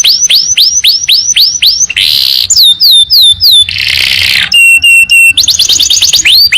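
Domestic canary singing a fast, loud song in quick runs: rapid upslurred whistles about six a second, two short harsh raspy bursts, a run of downslurred notes, a few flat clear tones, then a fast rolling series of sweeps near the end.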